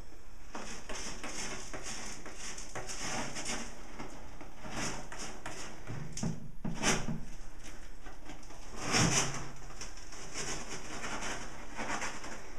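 Cat scratching and digging in the litter inside a hooded plastic litter box: a run of short raspy scratches, with two louder, deeper bumps about seven and nine seconds in.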